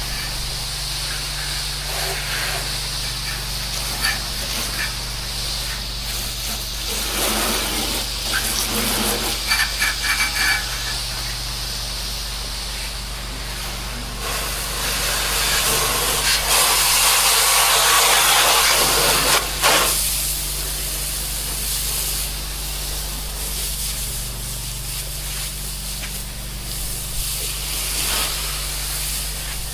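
Pressure-washing rig spraying water in a steady hiss, with its motor humming underneath. The spray gets louder about halfway through and then eases off before the end.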